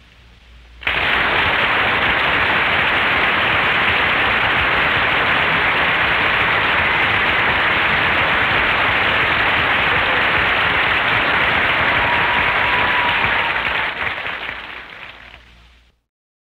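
Studio audience applauding, starting suddenly about a second in, holding steady, then fading out over the last two seconds.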